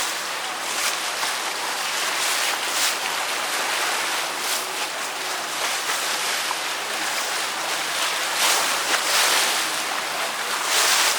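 Water rushing past a moving boat, mixed with wind: a steady rush with louder surges now and then.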